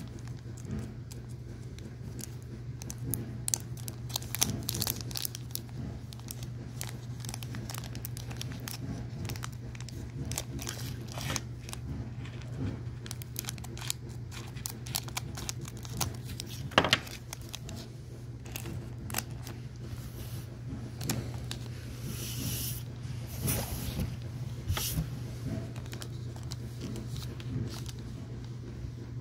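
Foil trading-card booster pack wrapper crinkling and being torn open by hand, with scattered crackles, sharp clicks and rustling, over a steady low hum.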